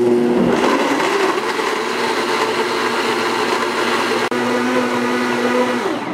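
Blendtec countertop blender running on high, blending frozen fruit and water into a purée: a loud, steady motor whine. Near the end the pitch falls as the motor switches off and spins down.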